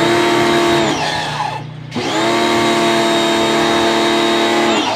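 Kawasaki ACK 302 pressure washer's motor running with a steady whine while water sprays onto a car. About a second in it winds down in pitch and stops briefly. It starts up again about two seconds in, runs steadily, and winds down once more at the end, as the spray gun's trigger is let go and squeezed again.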